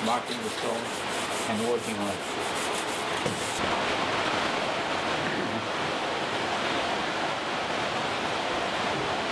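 Fast, rhythmic scraping of a hand tool on the face of a millstone, about seven strokes a second. About three and a half seconds in it stops and a steady rushing noise takes over.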